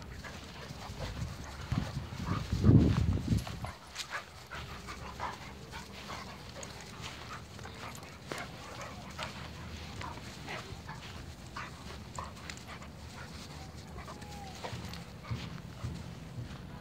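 A beagle and a larger black-and-white dog play-fighting, with many short, sharp scuffling and snuffling noises. A loud low rumble comes about two seconds in.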